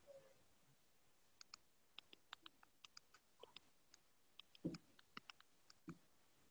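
Faint, scattered clicks of a computer mouse and keyboard, with one louder knock about four and a half seconds in.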